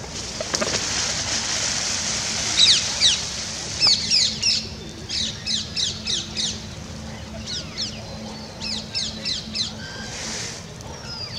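Birds chirping: quick series of short, high notes, each sliding down in pitch, repeated in rapid groups through most of the clip.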